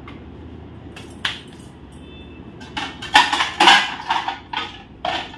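Stainless steel plates and dishes clattering and clinking as a plate is pulled out of a dish rack: a couple of knocks about a second in, then a busy run of metal clatter over the last two and a half seconds.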